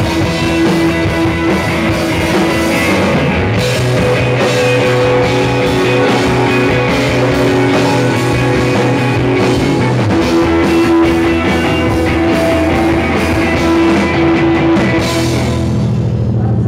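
Live rock band playing loud: electric guitar, bass guitar and a drum kit with cymbals. About a second before the end the drums drop out and low guitar and bass notes keep ringing.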